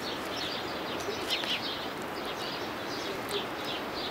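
Small birds chirping: many short, quick, downward-sliding calls, scattered throughout, over a steady background hiss.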